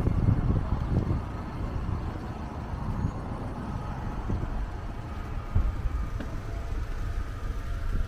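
Wind buffeting the microphone in gusts, over the steady noise of road traffic alongside.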